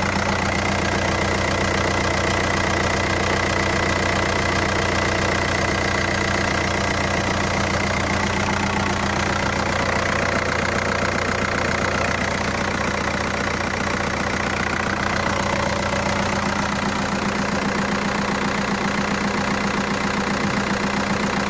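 Skoda Octavia mk2's 1.9 TDI (BKC) four-cylinder unit-injector turbodiesel idling steadily with an even diesel clatter.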